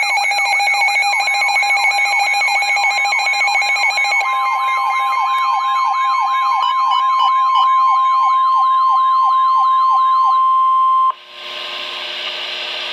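Weather radio alert: an electronic siren tone sweeping rapidly up and down in pitch about three times a second. About four seconds in, the steady 1050 Hz NOAA Weather Radio warning tone joins it. Both stop suddenly about eleven seconds in, leaving radio hiss.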